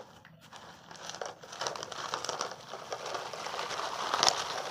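Dry fish feed pellets rustling and crunching as a plastic toy front loader's bucket is pushed through them, a dense crackle of many small clicks that grows louder toward the end, with a sharper crunch about four seconds in.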